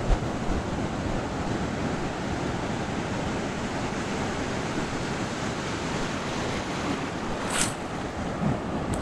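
Ocean surf washing steadily around the wader, with wind buffeting the microphone. A brief splash comes near the end.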